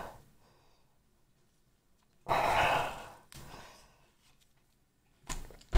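A person sighing out once through a Razer Zephyr Pro face mask: one breathy exhale of about a second, a little over two seconds in.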